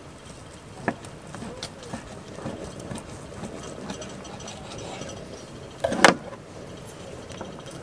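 Steak knife sawing back and forth through a grilled beef steak on a wooden board, with small clicks of the knife and fork. About six seconds in, a loud short clatter of metal utensils as they are put down and tongs taken up.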